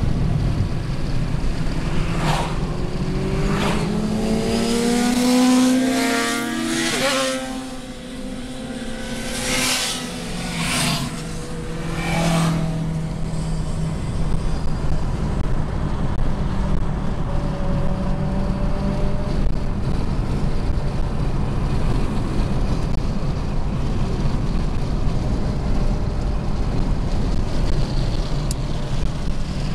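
Steady road and engine noise inside a moving car, with several vehicles whooshing past in the first dozen seconds. One passing vehicle's engine note rises and then drops sharply about seven seconds in.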